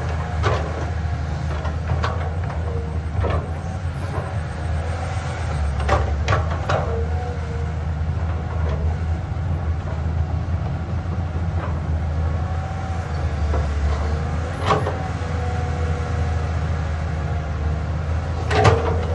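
Caterpillar 320D hydraulic excavator at work: its diesel engine runs steadily, with scattered short metal clanks and squeaks from the bucket and linkage, the loudest near the end.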